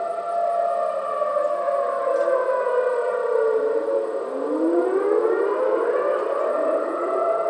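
Outdoor tornado warning sirens wailing. One holds a steady pitch while another slides down in pitch and then climbs back up about halfway through.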